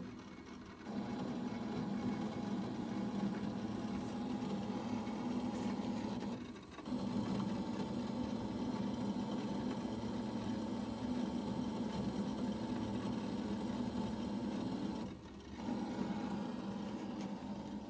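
MakerBot Replicator 5th Generation 3D printer running with a steady mechanical hum, dropping away briefly three times: at the start, about six seconds in, and about fifteen seconds in.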